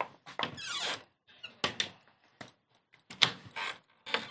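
A string of irregular short clicks, knocks and squeaks, with a brief squeaky glide near the start and short silences between them.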